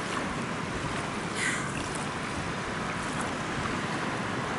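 Wind buffeting the microphone over a steady wash of surf and water, with one brief higher hiss about a second and a half in.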